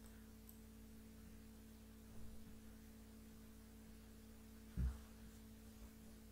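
Steady low electrical hum on the recording, with a short low thump about five seconds in.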